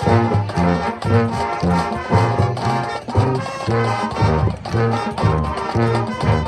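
High school marching band playing a brass-led, upbeat passage of short, punchy notes, with strong low brass underneath.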